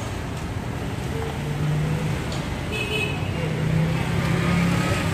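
Battered bananas deep-frying in a large wok of hot oil with a steady sizzle, under street traffic noise with passing engine hums.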